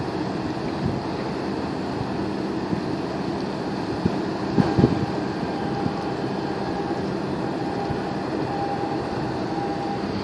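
Steady low engine rumble across open harbour water with wind on the microphone, broken by a few knocks about halfway through.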